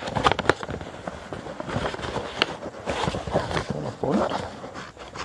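Sheet of copy paper rustling and crackling as it is folded and creased by hand against a tabletop, with irregular sharp crinkles and taps.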